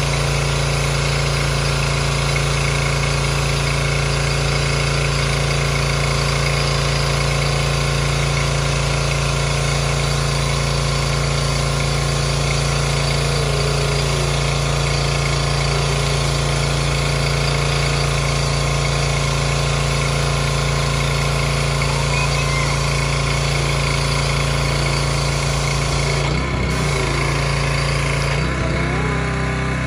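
Craftsman pressure washer's motor running steadily, with the high-pressure spray hissing onto a concrete driveway. Its note shifts briefly twice near the end.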